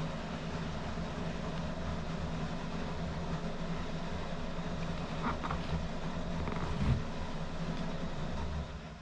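A steady low mechanical rumble with a hum, like a passing vehicle or a running machine, that drops away sharply near the end.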